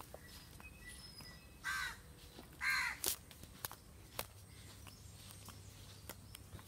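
A crow cawing twice, the two harsh calls a little under a second apart, with a few faint thin chirps just before them.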